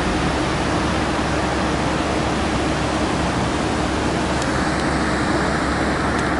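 Dubai Fountain water jets spraying and falling back onto the lake, a steady rushing hiss.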